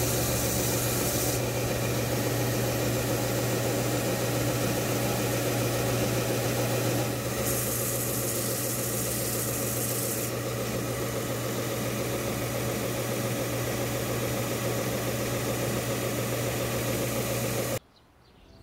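Belt sander running with a steady motor hum while a knife-handle block is pressed against the sanding belt, giving a rubbing, hissing grind. The hiss is stronger at the start and again about eight seconds in, and the whole sound cuts off suddenly near the end.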